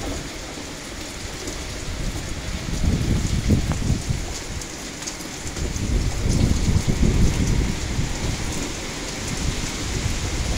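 Hurricane wind and heavy rain: rain pours steadily while gusts of wind swell twice, about three seconds in and again a few seconds later, with a low rumble.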